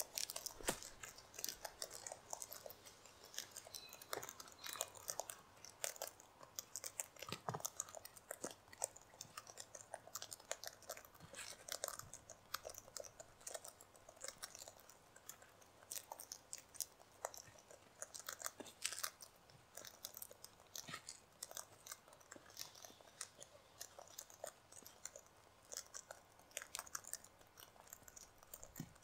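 Several sulphur-crested cockatoos crunching seed in their beaks: a steady stream of quick, irregular sharp cracks and clicks.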